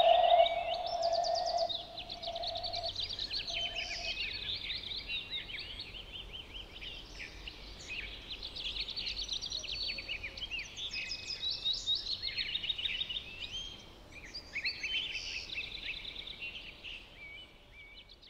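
Many small birds chirping densely, a constant chorus of rapid high chirps. For the first couple of seconds a steady held tone lies under them and is the loudest sound; it breaks off by about four seconds in.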